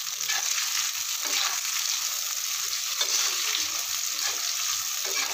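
Sliced onions and chopped garlic sizzling steadily in hot vegetable oil in a frying pan. A spatula stirs them, with a few brief scrapes against the pan.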